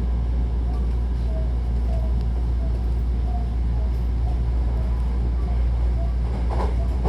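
Hankyu commuter train running between stations, heard from inside the passenger car: a steady low rumble with faint short tones and a brief noise near the end.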